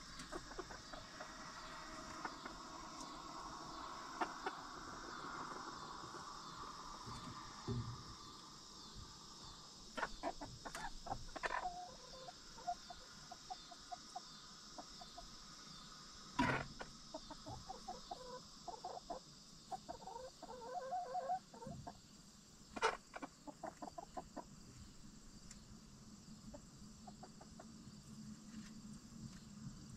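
Backyard hens clucking softly in short runs, with two sharp knocks standing out as the loudest sounds. A steady high insect trilling runs underneath.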